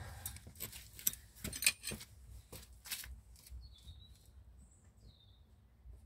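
Hand tools clicking and knocking as they are picked up and set down on block paving, about half a dozen sharp knocks in the first three seconds, followed by a few faint high bird chirps.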